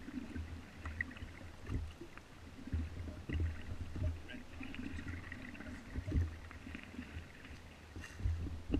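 Inflatable dinghy moving across calm water, with irregular low knocks and water sloshing against its tubes. Faint high chirps sound over it.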